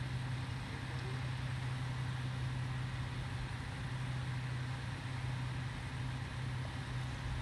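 Vehicle engine idling, a steady low hum that holds even throughout.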